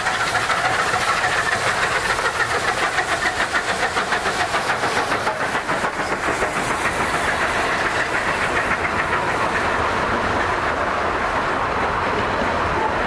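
1949 Škoda metre-gauge steam locomotive working hard past at close range, its exhaust chuffing in fast, even beats of about five a second. About six seconds in the beats fade, and the coal wagons roll by with a steady rumble of wheels on rail.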